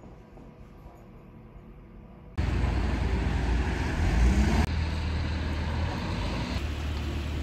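Quiet room tone, then about two and a half seconds in a sudden change to loud outdoor noise: wind rumbling on the phone's microphone over street traffic, with a vehicle's engine note rising briefly about four seconds in.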